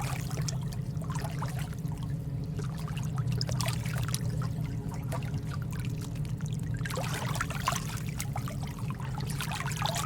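Water bubbling and trickling, with many small pops and clicks over a steady low hum.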